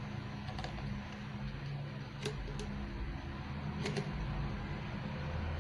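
An inner tube being handled and pushed into a small plastic bottle-cage tool container: soft handling rustle with a few light clicks, over a steady low hum.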